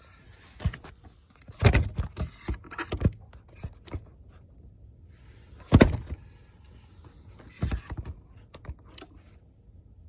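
Metal hand tools clinking and clanking as a spark plug socket and ratchet are handled at the engine, in scattered clicks with louder clanks about two seconds in, near six seconds and near eight seconds.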